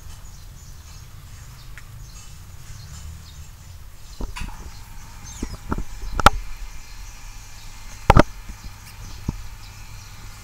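Rats moving about in wood-shavings bedding, with scattered knocks and bumps against the cage, over a low steady hum. The loudest is a double thump about eight seconds in.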